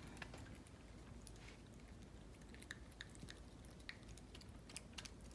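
A small dog eating from a bowl of shredded chicken mixed with dry kibble: faint, scattered clicks of chewing and licking at irregular intervals.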